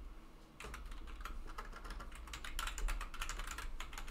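Typing on a computer keyboard: a quick, uneven run of key clicks that starts about half a second in.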